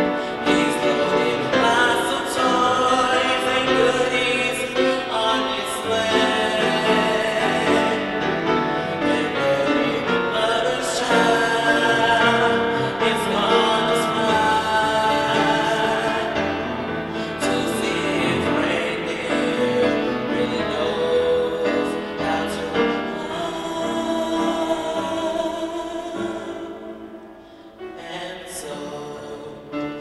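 A middle-school boy singing a solo through a handheld microphone, with music behind him. The singing dips quieter for a moment near the end.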